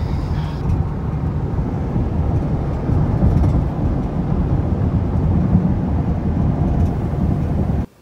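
A car driving along a road, heard from inside the cabin: steady low tyre and engine rumble that cuts off suddenly near the end.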